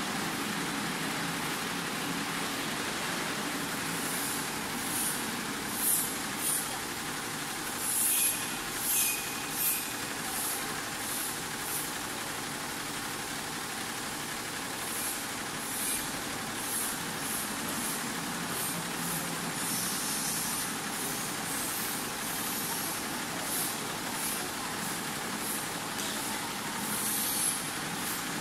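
Ten-head, nine-needle Butterfly embroidery machine running steadily as it stitches garments, with short high hisses every few seconds.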